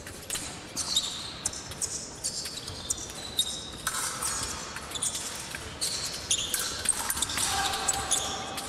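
Épée fencing bout in action: irregular sharp knocks and high metallic clicks of blades meeting, mixed with the fencers' feet stamping on the piste.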